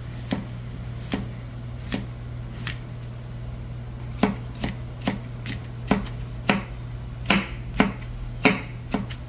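Chef's knife slicing a cucumber on a plastic cutting board, each cut ending in a sharp knock of the blade on the board. The cuts come slowly at first, then quicken to about two or three a second from a few seconds in.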